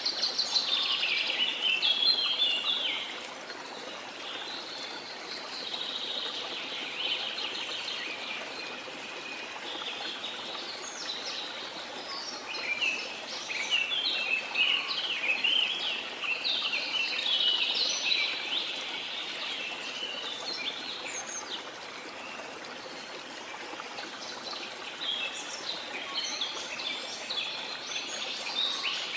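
Several birds singing in bouts of quick chirps and trills, busiest near the start, in the middle and near the end, over the steady hiss of running water from a waterfall.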